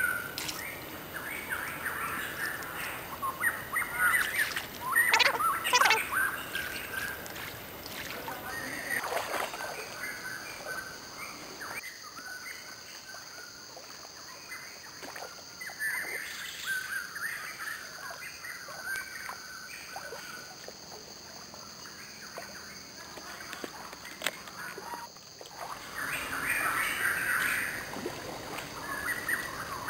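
Birds chirping in scattered short calls over quiet creek water, with a steady high tone that joins about a third of the way in.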